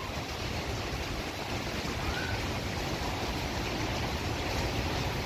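Hurricane wind and rain: a steady rushing noise that slowly grows louder.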